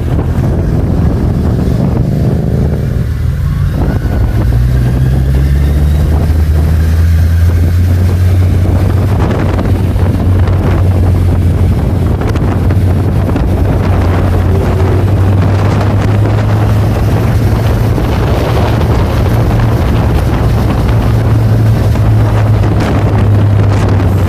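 Motorcycle engine running under way, with wind buffeting the microphone. The engine note shifts a few seconds in, then holds steady.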